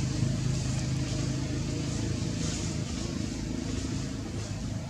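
A motor engine running steadily with a low, even hum, holding the same pitch throughout.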